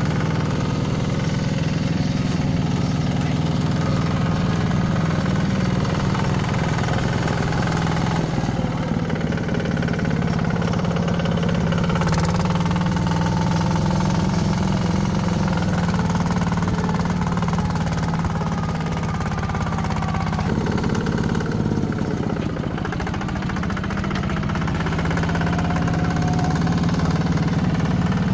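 Diesel engine of heavy earthmoving machinery running steadily, its level dipping slightly about three-quarters of the way through.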